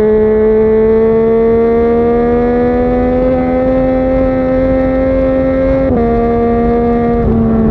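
Yamaha MT-09's three-cylinder engine through a Yoshimura R55 slip-on exhaust, pulling under load at speed with its pitch slowly climbing. Near the end the revs drop sharply twice in quick succession, with wind noise underneath.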